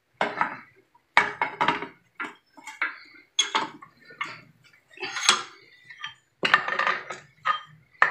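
Irregular metal clanks and clinks, some ringing briefly, as the reconditioned ball joint on a Daihatsu Taruna lower control arm is worked by hand to test it after repair.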